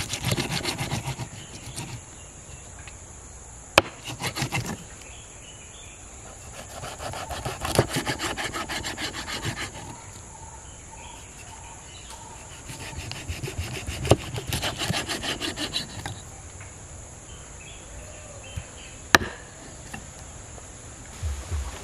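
A broad knife blade scraping the scales off a fish on a board, in several bursts of quick rasping strokes with pauses between. A few single sharp knocks of the blade stand out, the last near the end.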